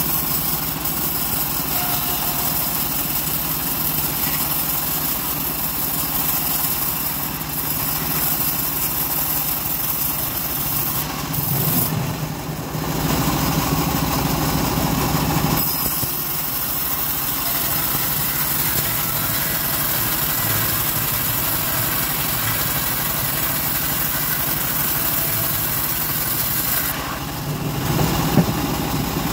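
Home-built vertical bandsaw mill ripping a teak beam: a steady hiss of the band blade cutting wood over the constant drone of the machine's drive. The cutting hiss breaks off for a few seconds about twelve seconds in and again near the end, as the blade runs free between passes.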